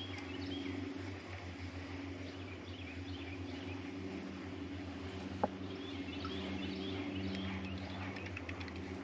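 Small birds chirping here and there over a steady low hum, with a single sharp click about five and a half seconds in.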